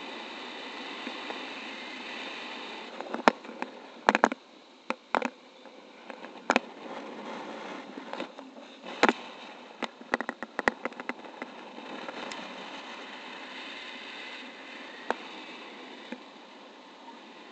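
Steady rush of wind over the camera microphone in paraglider flight, with a run of sharp clicks and knocks against the camera or its mount from about three to eleven seconds in, and one more click near the end.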